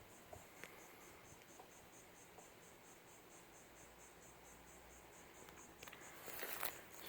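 Faint insect chirring, an even high-pitched pulse repeating about four to five times a second, with rustling noises starting about six seconds in.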